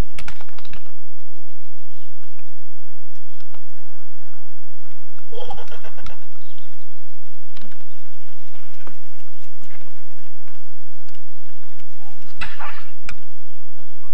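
A young child's excited high-pitched squeals, twice: once about five seconds in and again near the end, with a few sharp knocks at the start.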